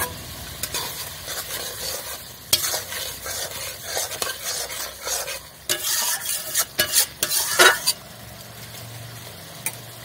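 A spatula scraping and stirring in a metal kadai of simmering, sizzling curry, in irregular strokes; the stirring stops about eight seconds in, leaving a softer steady sizzle.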